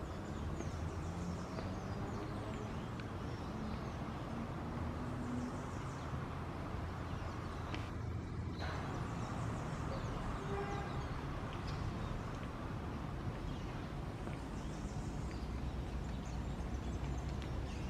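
Steady low outdoor rumble with faint, short high-pitched bird chirps now and then. The sound drops out briefly about eight seconds in.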